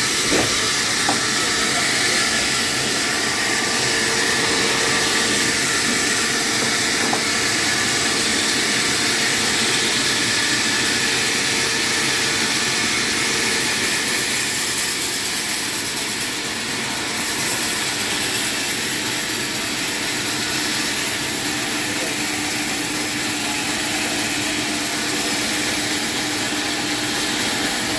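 Power saw running steadily: a continuous hissing whir with a faint motor hum whose pitch shifts about halfway through.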